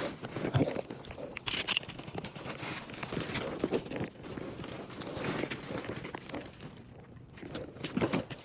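Footsteps and rustling through woodland undergrowth, irregular crackles and crunches of leaves and twigs underfoot, easing off near the end.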